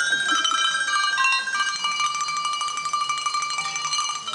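Small tuned bells struck in a quick run of ringing notes at several pitches, each note ringing on as the next is struck.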